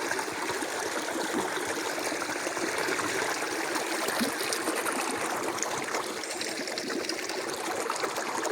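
A small river flowing steadily, water running and trickling over its bed.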